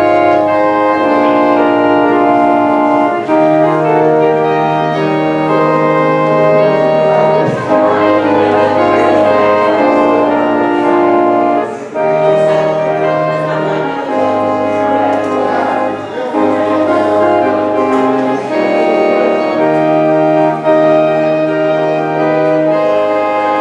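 Church organ playing the postlude after the benediction: sustained full chords in a brassy, trumpet-like registration over a slow-moving held bass line whose notes change every couple of seconds.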